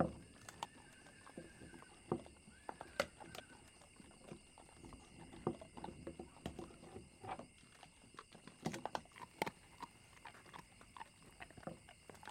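Dogs gnawing and chewing on bones, a scatter of irregular cracks, clicks and crunches of teeth on bone against a wooden floor. A faint wavering high note sounds twice in the first few seconds.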